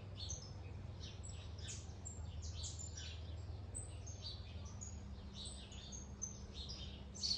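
Many small birds chirping and calling together in a dense, overlapping chorus of short high notes, over a steady low rumble. A low steady hum comes in a little past halfway.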